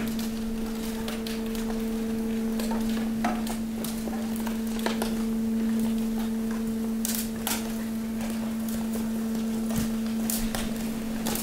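Hydraulic waste compactor's pump running with a steady hum while the ram moves, with scattered crackles and knocks of plastic bags, bottles and garden waste shifting and sliding in the hopper.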